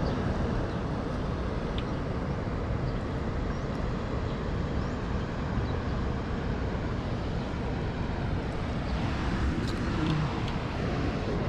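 Steady rush of water pouring through a spillway: a constant, even roar with no breaks.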